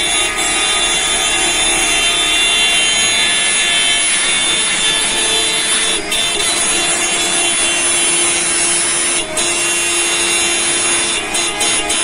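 Many bus horns blaring together in a loud, steady din, dropping off briefly a few times, most often near the end.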